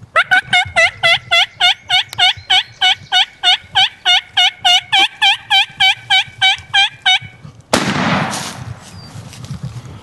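A long, even run of wild turkey yelps, about four a second for some seven seconds. They are followed by a single loud shotgun shot with a short echoing tail.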